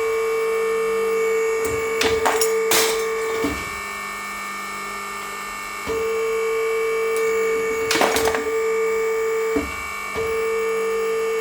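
An electric scrap-metal cutting machine, worked by a foot pedal, hums steadily, with a pause twice. Sharp metallic cracks come about two seconds in, again just after, and once more about eight seconds in: the machine cutting pieces off scrap metal.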